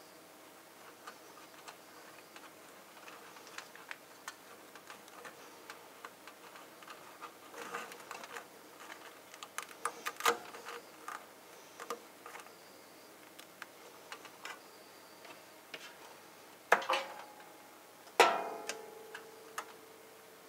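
Handling noise as a fiber-optic patch cable is coiled and routed around spool brackets inside a metal media enclosure: irregular light ticks and taps, busier in the middle. Near the end come two sharp knocks, the second ringing briefly.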